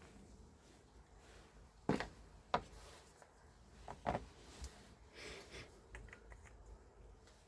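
Handling noises during the repair of a hammer breaker: a few sharp knocks and clicks, two close together about four seconds in, then light rustling and small ticks.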